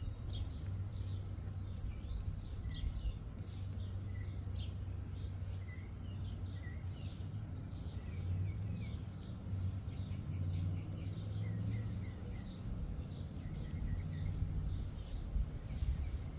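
Small birds chirping, many short quick notes one after another, over a low steady rumble.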